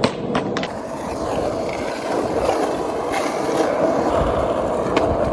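Skateboard wheels rolling over pavement in a steady rumble, with sharp clacks at the start, about half a second in, and again near the end.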